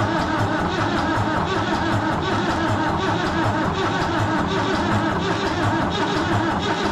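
David Brown 990 tractor's four-cylinder diesel being cranked over on its starter motor, turning over with a steady, fast, even rhythm of compression strokes. The engine is being tried for its first start after sitting for some 30 years.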